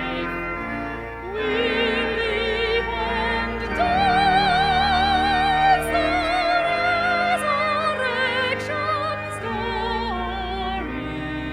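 Music: a solo classical-style voice with a strong vibrato holding long notes over sustained accompanying chords.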